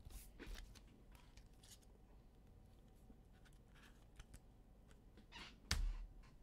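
Soft rustles and light clicks of trading cards being handled and slid about, with one sharp knock on the table near the end.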